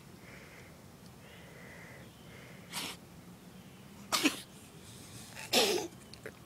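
A cat choking: short, sharp hacking coughs. One comes about three seconds in, a quick double about four seconds in, and the loudest near the end.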